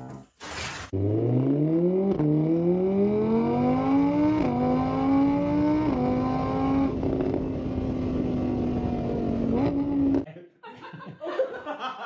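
Car engine accelerating hard through the gears. Its pitch climbs, drops back at each of three shifts, then holds steady at high revs before cutting off suddenly about ten seconds in.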